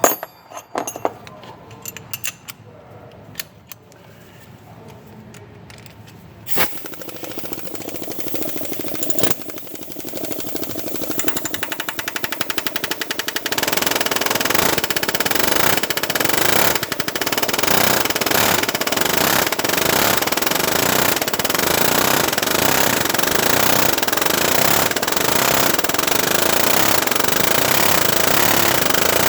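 Pneumatic hammer rapidly hammering on a corroded, seized EGR valve to break it free. After a few quieter seconds of light clicks there is a sharp hit, then the hammering builds and runs loud and continuous.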